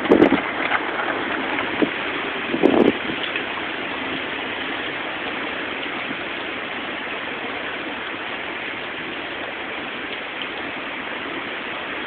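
Steady rush of hurricane wind and rain, with two brief louder bursts in the first three seconds.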